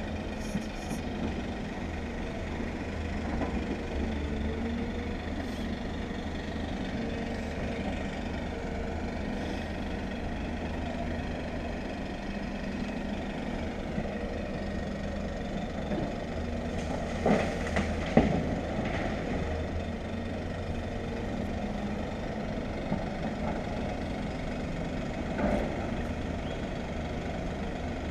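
Diesel engine of an excavator working in the riverbed, running steadily, with a few sharp knocks about two-thirds of the way through and another near the end.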